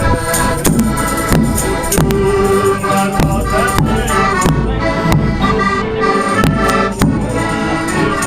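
Lively accordion music over a steady percussive beat, starting abruptly.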